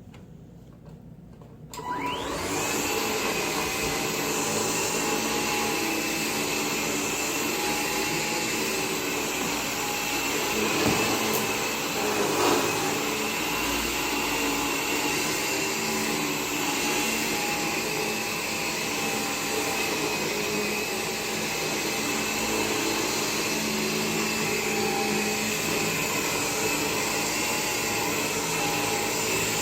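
Bissell Air Ram cordless vacuum switched on about two seconds in, then running steadily with a high motor whine.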